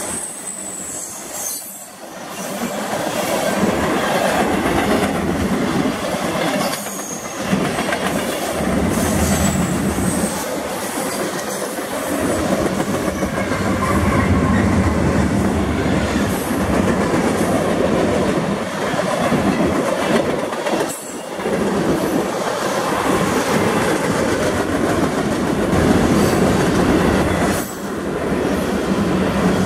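CSX freight train rolling past close by: a steady rumble of steel wheels on rail, with clickety-clack over the rail joints. A thin, high wheel squeal comes and goes in the first ten seconds or so, and the noise dips briefly a few times.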